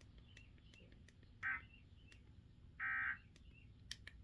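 Emergency Alert System end-of-message data bursts, a harsh digital buzz: a short one about a second and a half in and a longer one near three seconds. They signal the end of the alert.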